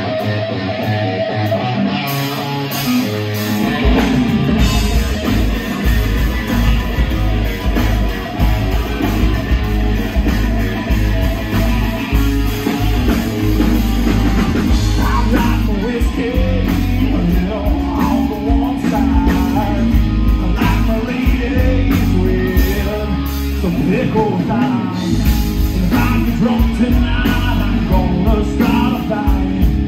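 Live rock band playing a song: electric and acoustic guitars, bass and drums. The bass and drums come in about four seconds in, and a man's lead vocal comes in partway through.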